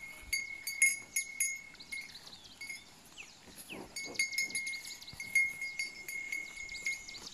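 Bells on cattle clinking and jingling irregularly, with a short lull about three seconds in.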